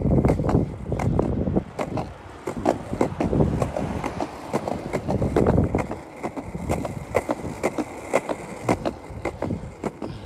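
Penny board rolling on pavement: a rough, steady wheel rumble broken by frequent irregular clicks and knocks.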